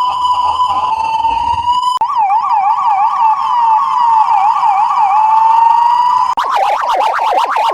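Ambulance siren sound in edited variations, cut abruptly from one to the next: first a steady wail tone that rises near the end, then about 2 s in a quick up-and-down yelp that slows into a rising glide, then just after 6 s a faster, choppy, harsher-sounding warble.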